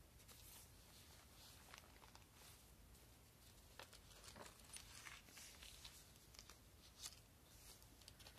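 Near silence with faint paper rustles and a few soft clicks as the pages of a handmade journal are handled and turned.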